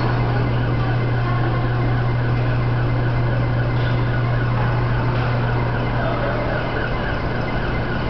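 Steady low hum that does not change, over a wash of even background noise.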